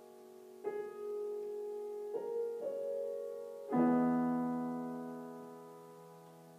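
Grand piano playing slowly and quietly, with notes left to ring. Single notes come in about a second in and again near two and three seconds. A fuller chord, the loudest moment, is struck a little before four seconds and fades away slowly.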